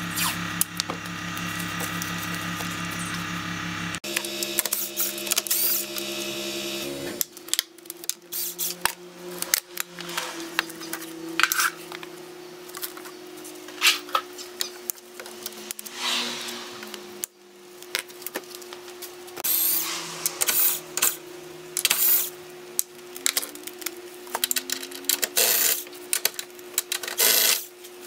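Hand tools clicking and clanking against metal parts while the car's engine bay is dismantled, under a steady mechanical hum. The hum shifts in pitch about four seconds in and drops away about seven seconds in; the clicks come irregularly and grow busier near the end.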